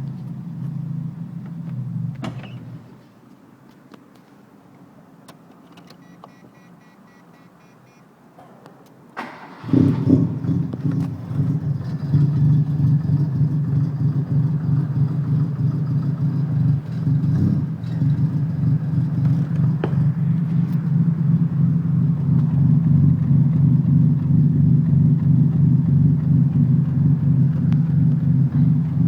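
Car engine running, cutting out about three seconds in, then starting up again near the ten-second mark and settling into a loud, steady rumbling idle.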